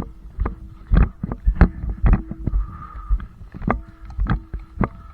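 Footsteps and the gear knocks of a player walking with a body-worn camera, about two heavy thumps a second, over a faint steady hum.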